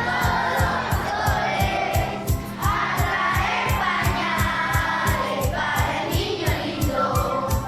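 A song sung by a group of voices over a steady fast beat.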